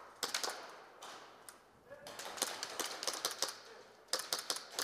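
Airsoft guns firing in quick strings of sharp snaps and clicks: a short burst at the start, a longer run in the middle, and a dense burst near the end.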